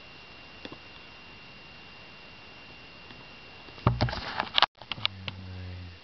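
Camcorder handling noise: a loud burst of knocks and rustling about four seconds in, a brief dropout, then about a second of steady low hum from the camcorder's zoom motor as it zooms in on the screen. Before that there is only faint steady hiss with a thin high tone.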